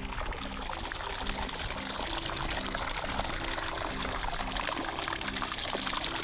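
A steady stream of water from a garden hose splashing and pouring into water pooled in a sagging coated-nylon rain catcher.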